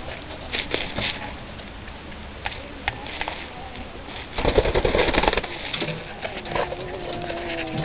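Chickens in a yard: scattered short clucks and scratching, a loud rustling flurry about halfway through, and one drawn-out steady call near the end.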